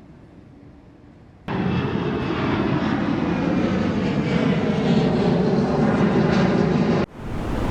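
A faint low hum, then a loud mechanical drone that starts abruptly about one and a half seconds in, its pitch sinking slowly, and cuts off abruptly near the end.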